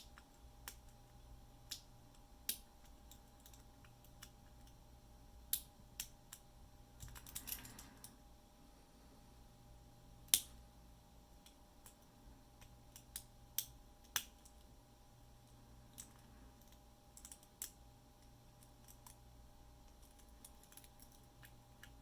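Lock picks working in the keyway of a 10-wafer LOTO padlock: scattered, irregular small metallic clicks and ticks as the wafers are worked. There is a short scratchy rattle about seven seconds in.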